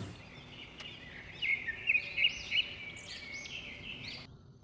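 Birds chirping and singing: a quick run of short, high, rising and falling calls that cuts off abruptly near the end.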